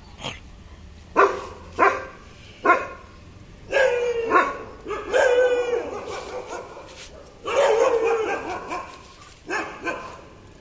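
German shepherd barking aggressively. It gives several sharp single barks, then longer drawn-out barks, then two more short barks near the end.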